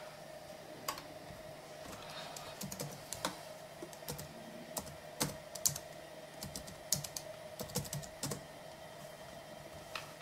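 Keystrokes on a laptop keyboard: scattered sharp key taps, some in quick runs, as numbers are typed into entry fields, over a faint steady hum.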